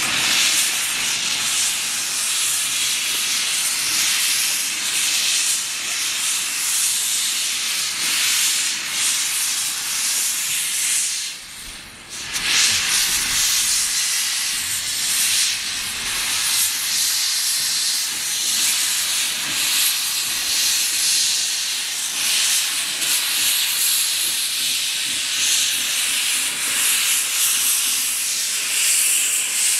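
Small 0-4-0 saddle-tank steam locomotive moving off slowly with its cylinder drain cocks open, blowing a loud, steady hiss of steam that briefly dies away about twelve seconds in before resuming.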